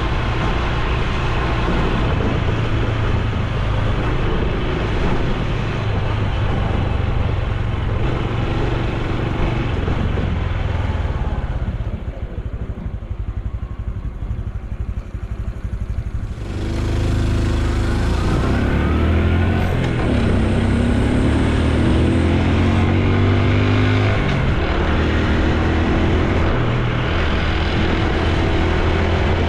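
Honda Super Cub C125's single-cylinder engine and exhaust running on the move, over wind noise on the microphone. About twelve seconds in it drops quieter for some four seconds, then picks up again and accelerates, the pitch rising several times in steps as it shifts up.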